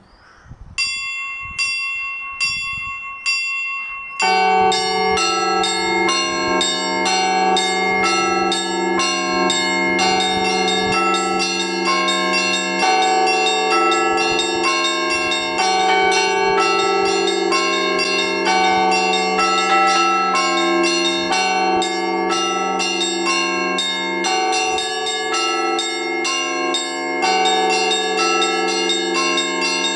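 Russian Orthodox church bells rung from ropes tied to their clappers, played as a Rostov-style weekday ring. A few evenly spaced strokes on the small bells open it; about four seconds in, the big bell and the middle bells join, and the ringing becomes a full, rapid, continuous peal over the big bell's low hum.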